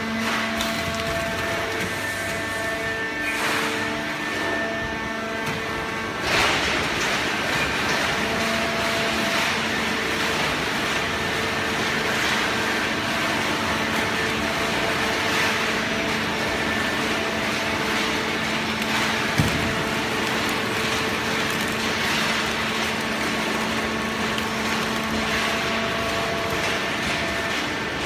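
Fully automatic horizontal hydraulic baler running: the steady hum and whine of its hydraulic power unit, with a louder, fuller machine noise coming in about six seconds in and a single sharp click near the end of the second third.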